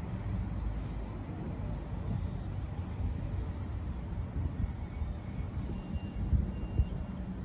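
Class 720 Aventra electric multiple unit moving slowly along the platform: a steady low rumble of wheels and running gear, with two short thumps near the end.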